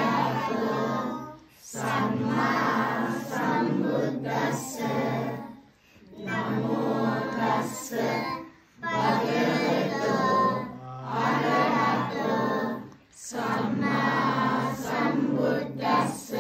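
A group of children singing together in unison, in phrases of about three to four seconds with brief breaks for breath between them.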